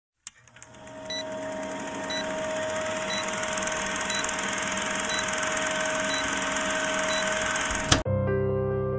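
Old-film countdown sound effect: a projector-style running noise with hiss and crackle, a short high beep about once a second. It cuts off suddenly near the end, and soft music begins.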